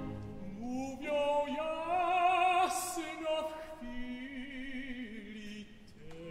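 Operatic tenor singing in Polish, with vibrato on held notes, over soft orchestral accompaniment. He sings out a rising phrase in the first few seconds, then the music grows quieter.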